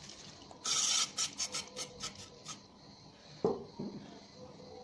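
Fingers rubbing and wiping the rubber diaphragm of a dismantled LPG regulator to clean off deposits. There is a quick series of short scraping strokes in the first two and a half seconds, the first one loudest, and one short low sound about three and a half seconds in.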